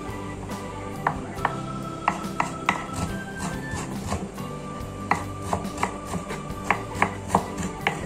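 Cleaver chopping ginger finely on a thick round wooden chopping board. The blade strikes the wood in irregular sharp knocks, sometimes in quick pairs, with a pause of about a second in the middle.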